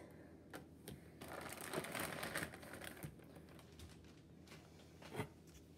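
Faint handling noise of plastic Play-Doh tubs being set down and picked up: scattered light clicks, a soft rustle about a second in, and a sharper click near the end.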